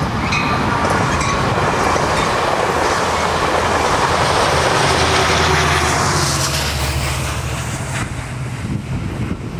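Amtrak Pacific Surfliner passenger train passing close by: a loud rumble of wheels on the rails with some clickety-clack. A steady low diesel engine drone comes in about halfway as the locomotive end goes past. The sound fades near the end as the train moves away.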